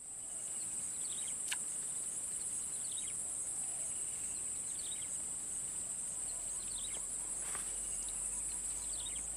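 Steady high-pitched drone of insects in the swamp vegetation, with short chirps repeating about every second and a half over it.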